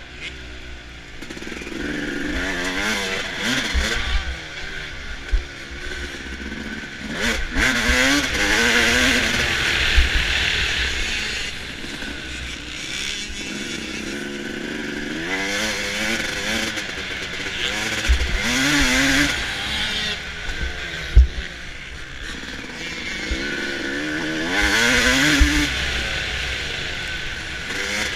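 Suzuki RM250 single-cylinder two-stroke motocross engine revving hard and dropping off again and again as the rider accelerates and shuts off around the track. A few sharp knocks break through, the loudest about ten and twenty-one seconds in.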